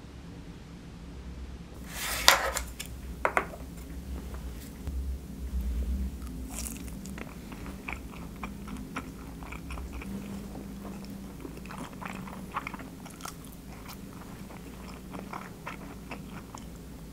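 Close-up eating sounds: biting and chewing food, with small taps and clicks of chopsticks and a spoon against wooden bowls, and one sharper knock about two seconds in.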